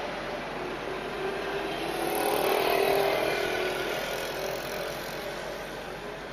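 A road vehicle passing close by, heard from inside a stationary car: its engine and tyre sound swell to a peak about halfway through, then fade away, over the car's steady cabin hum.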